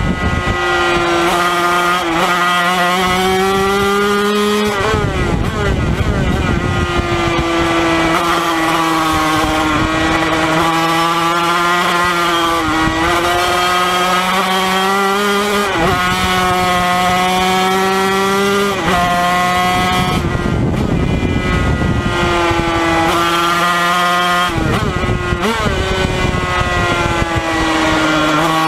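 Yamaha TZ250 two-stroke racing engine at full throttle: the revs climb and drop back with each quick upshift, again and again. Several times the steady note breaks into a rough, crackling off-throttle sound while braking and downshifting into corners.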